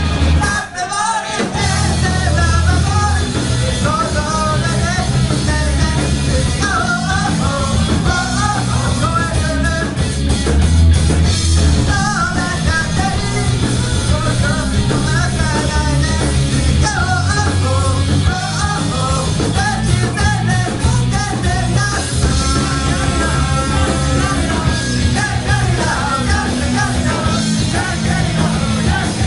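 Rock band playing a song with a sung lead vocal, drums and guitars. The band cuts out for about a second near the start, then comes back in at full volume.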